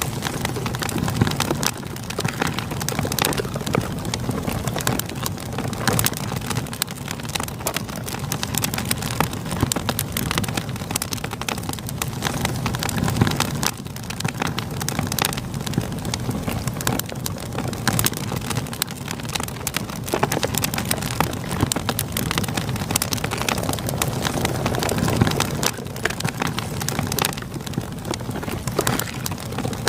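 Campfire crackling with many irregular sharp pops over a steady rush of flowing river water.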